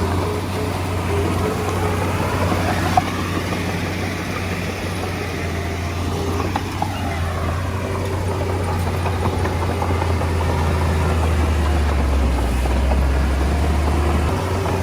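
Bulldozer's diesel engine running steadily with a low drone, and a sharp click about three seconds in. The low drone swells briefly near the end.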